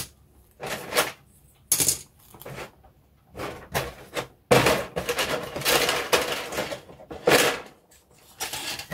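Clear plastic bag holding a plastic model-kit sprue being handled, crinkling and rustling in short irregular bursts, with a longer stretch of crinkling about halfway through.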